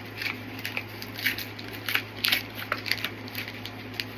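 Crinkly plastic or foil Pokemon card packaging being handled and torn open, a series of irregular crackles and rustles over a steady low hum.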